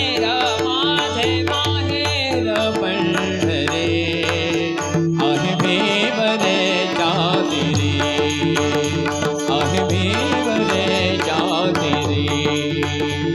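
Marathi abhang devotional music with no lyrics sung. A gliding melodic line plays over a steady drone, with tabla strokes keeping the rhythm.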